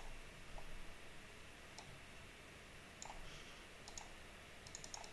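Faint, scattered computer mouse clicks, with a quick run of clicks near the end.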